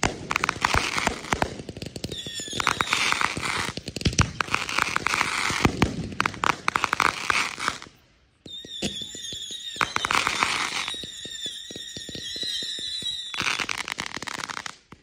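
Consumer fireworks display going off in quick succession: dense popping and crackling of bursts and ground effects, with a high steady whistle running over parts of it. The sound breaks off briefly about eight seconds in.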